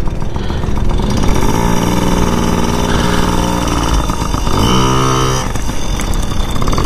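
Dirt bike engine revving up and holding at a steady pitch, twice: once about a second and a half in, and again near the end, as the bike pulls away at low speed.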